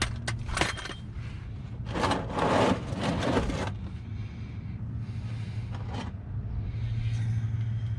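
Hand work on the car: a couple of sharp clicks, then a scraping, rustling sound about two seconds in that lasts over a second, and another click later, over a steady low hum.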